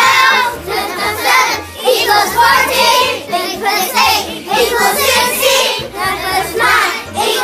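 A group of young children singing along to a song with a steady beat.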